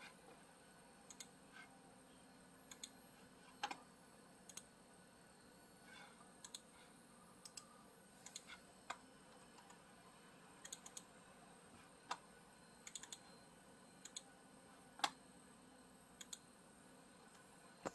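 Sparse, irregular clicks of computer keys and mouse buttons being pressed, about one or two a second, over a near-silent room; one click about fifteen seconds in is louder than the rest.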